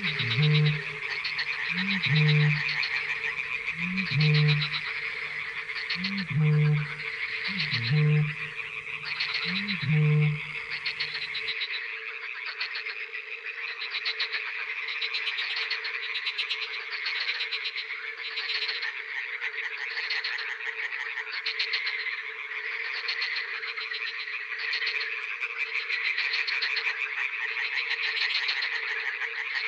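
A dense chorus of frogs calling continuously, a high pulsing croaking over a steady lower note. For the first eleven seconds a Eurasian bittern booms six times, deep hollow calls about two seconds apart, each with a short rising intake before it; the booming then stops abruptly.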